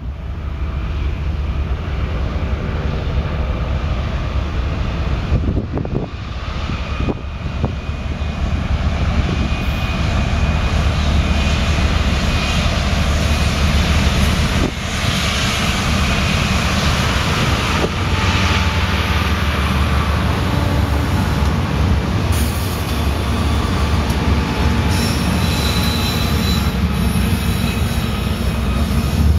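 A multi-unit diesel locomotive consist running as it approaches and passes, then a double-stack container train's cars rolling by on the rails. Thin, high wheel squeals come in near the end.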